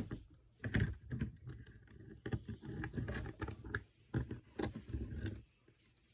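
Small plastic Lego pieces clicking and rattling as they are handled, in quick irregular runs, stopping shortly before the end.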